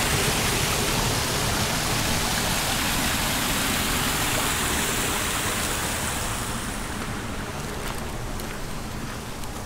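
Running water of a garden stream, a steady rushing, splashing hiss that thins out and grows quieter from about six seconds in.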